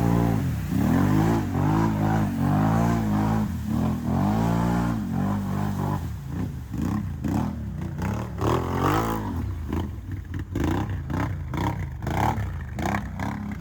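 ATV engine revving up and down over and over, its pitch rising and falling about once a second, as the quad is ridden through sand. In the second half the engine drops back and many short clicks and knocks come through.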